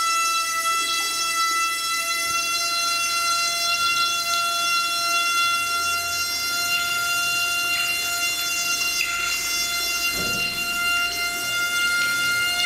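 Old brass wall tap whistling as it runs water into the sink: one steady horn-like tone, its pitch creeping slightly upward while the handle is held partly open.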